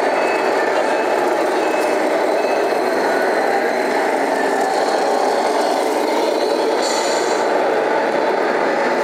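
Steady roar of a busy indoor exhibition hall, with a few faint short beeps in the first seconds and a brief hiss about seven seconds in.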